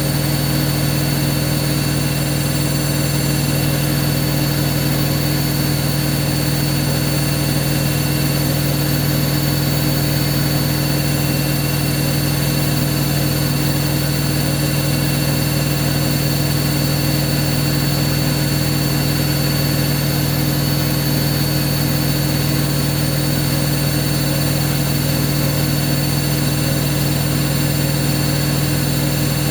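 Hoover washing machine running with a loud, unchanging motor hum and a few thin high whines over it. The owner calls the machine gone haywire.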